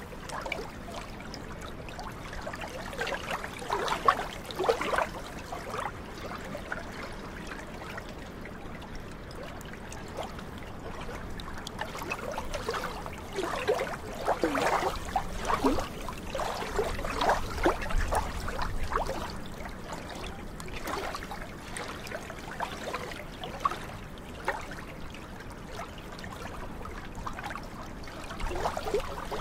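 Small waves of glacial meltwater lapping and trickling at the lagoon's edge, with clusters of splashy gurgling plops a few seconds in and again around the middle.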